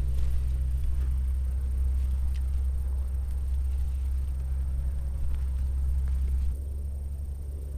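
Low, steady rumble of wind buffeting the microphone, easing abruptly about six and a half seconds in.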